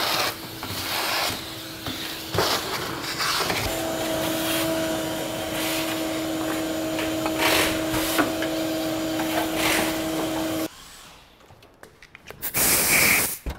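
Wet/dry shop vacuum running, its hose sucking dirt and debris out of a truck's engine bay, with a steady humming tone and scattered scrapes and rattles as the nozzle is worked around; the hum steps up a little about four seconds in. It cuts off abruptly about eleven seconds in, and a brief loud burst of noise follows near the end.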